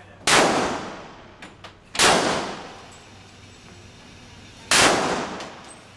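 Three single gunshots about two seconds apart, each sharp crack dying away over a second or so.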